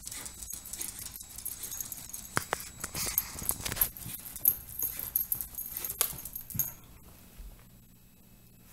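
Dog's claws scratching and scraping rapidly on the stone hearth of a fireplace as she digs with her front paws, with sharp clicks of claw on stone; the scratching stops about two-thirds of the way through.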